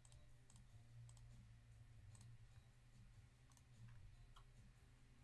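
Near silence: faint, irregular clicks, about two or three a second, over a low steady hum.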